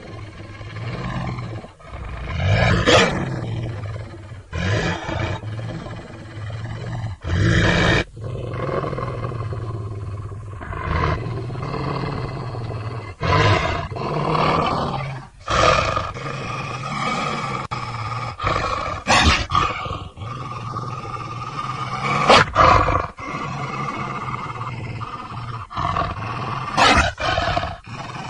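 Werewolf growl sound effect: a continuous low, rumbling growl that swells into louder snarling roars every few seconds.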